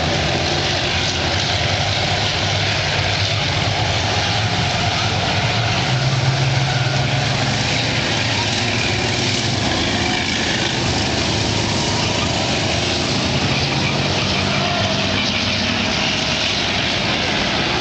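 Engines of a pack of race cars running steadily together as they circle the oval lined up before the green flag, with a low steady hum that swells a little about six seconds in.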